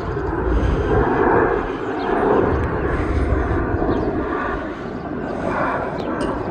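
Jet airliner engine noise at an airport: a steady, noisy rumble that swells and eases slightly, with a few faint short high chirps over it.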